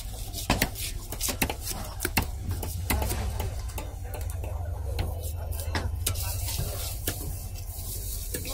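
A knife scraping the scales off a rohu fish, in irregular sharp clicks and scrapes, over a steady low rumble.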